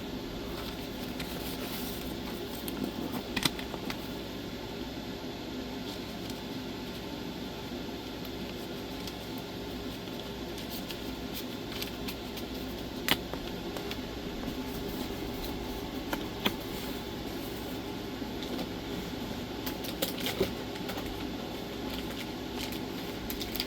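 Steady hum of a running fan or air-conditioning unit in a small room, with a few short sharp clicks, one about 3 seconds in, others near the middle and a cluster toward the end.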